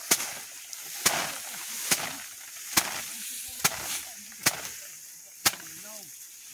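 Hand threshing of rice: a bundle of cut rice stalks is swung and beaten against a wooden frame, knocking the grain loose from the panicles. Seven sharp whacks come at a steady pace of a little under one a second.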